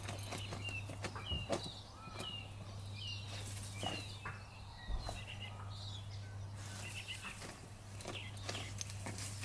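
A dog digging: rapid, irregular scratching and scraping of paws in the ground. A small bird chirps over it, short calls repeated about every half second, which stop about six seconds in.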